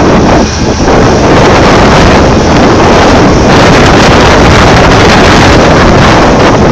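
Komatsu PC8000 mining excavator at work: a loud, steady machine noise heavily mixed with wind buffeting the microphone, with a brief dip about half a second in.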